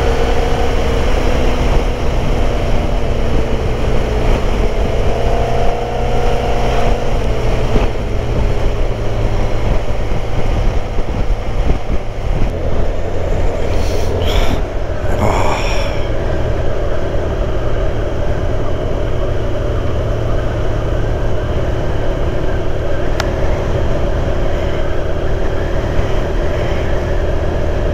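Motorcycle riding at road speed: a steady low rumble of engine and wind, with the engine note shifting up and down in the first several seconds. A brief whoosh comes about halfway through.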